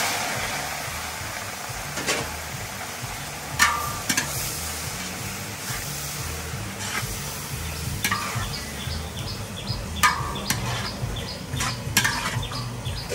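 Cabbage sizzling in hot oil in a large wok, loudest at the start just after it goes in, while a long-handled metal spatula stirs and scrapes it, clanking against the wok several times.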